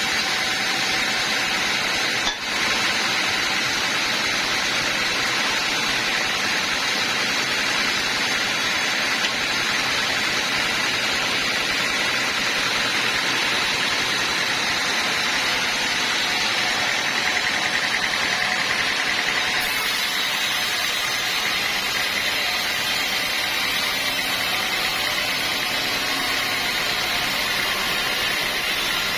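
Sawmill running with its blade cutting through a teak log: a steady, even machine-and-sawing noise, with one sharp click about two seconds in.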